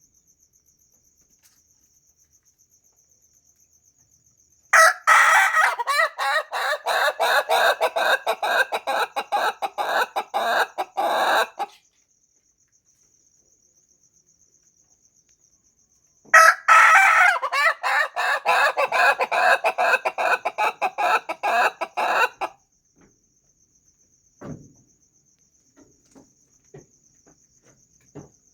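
Ayam ketawa (laughing chicken) rooster crowing twice, each crow a long run of rapid staccato notes lasting about seven seconds, the breed's laugh-like crow.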